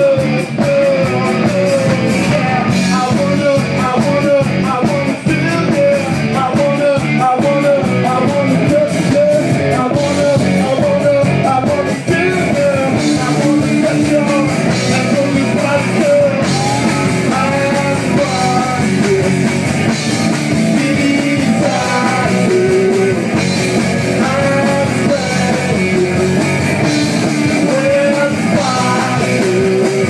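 Live rock band playing loud, with a man singing into a microphone over electric guitar.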